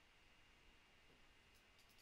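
Near silence: faint steady hiss of room tone, with a few faint, short clicks near the end.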